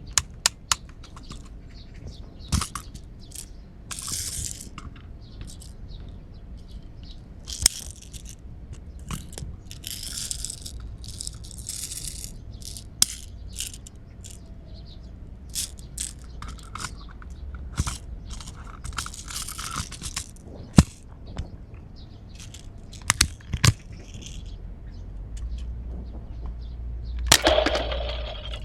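Plastic toy guns being handled and worked, giving scattered sharp clicks and several short rattling scrapes, the longest near the end.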